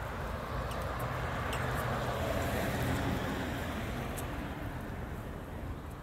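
A road vehicle passing by: engine hum and tyre rush swelling to a peak about halfway through, then fading away, with a few faint clicks.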